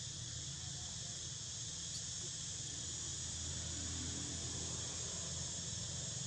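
Steady high-pitched chorus of insects shrilling without a break, over a low steady hum.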